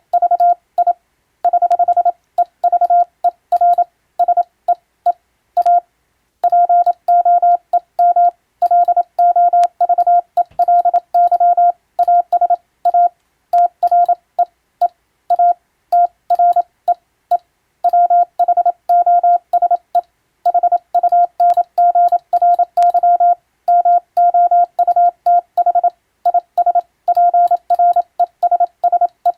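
Morse code (CW) tone keyed by a radio operator: a single steady beep switched on and off in rapid dots and dashes, sending an English-language radiotelegram for code practice, with a short break about six seconds in.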